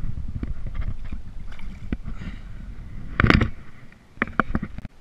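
Handling noise from an action camera being moved on its mount on a plastic paddleboard: rumbling on the microphone, then a sharp clatter of knocks about three seconds in and a few lighter taps near the end.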